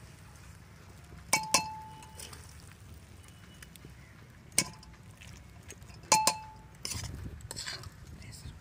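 Metal serving spoon clinking against the rims of a steel wok and an aluminium pressure cooker while curry is ladled from one to the other: a few sharp clinks with a short ring, two of them quick double taps, then scraping of the spoon inside the pan near the end.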